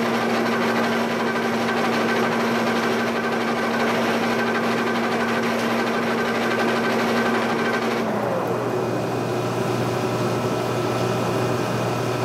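Giddings & Lewis milling machine under power feed, a steady mechanical whine with a constant hum beneath, moving the head across the face while the dial indicator checks flatness. About eight seconds in the feed drive stops and its whine winds down in pitch, leaving the machine's steady hum.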